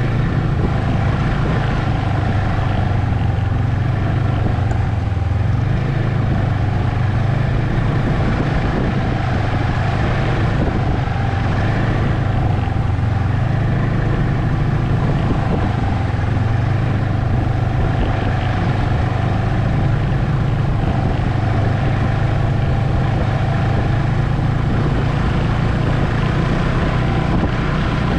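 Ski-Doo Expedition SE snowmobile running steadily at trail-cruising speed, a loud continuous engine drone with small rises and falls in pitch as the throttle eases and opens, heard from the rider's seat.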